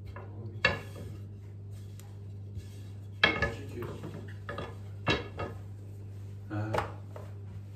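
Long thin wooden rolling pin (oklava) knocking and clattering against the counter as pide dough is rolled out and the pin is picked up and set down: about five sharp knocks, over a steady low hum.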